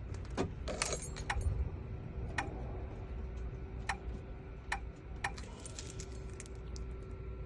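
Small sharp metallic clicks and clinks of a car key being handled, several close together at first and then about one a second, over a steady low hum.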